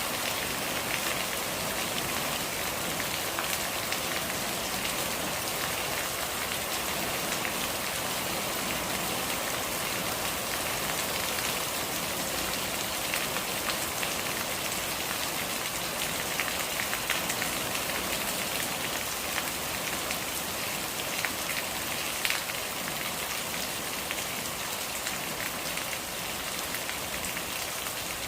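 Steady rain falling, an even hiss of many drops with occasional louder single drop hits standing out.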